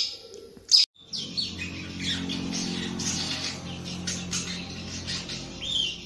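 Young sunbird chirping with short, sharp high calls. After about a second the sound changes to softer, repeated bird chirps over a steady low hum.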